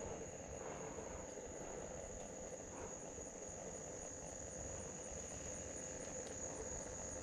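Insects trilling, one steady high-pitched drone that holds unchanged throughout, over a faint low rumble.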